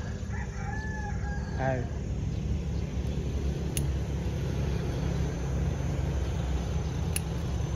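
A rooster crows once near the start, a single call about a second and a half long, over a steady low background rumble; two short sharp clicks follow later.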